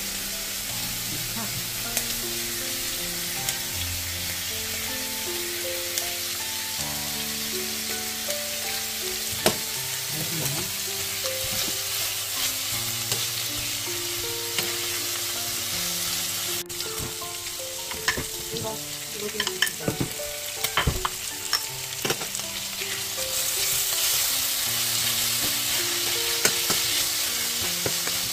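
Pork belly slices sizzling as they fry in a pan, stirred and turned with kitchen utensils that click sharply against the pan several times partway through. The sizzle grows louder near the end.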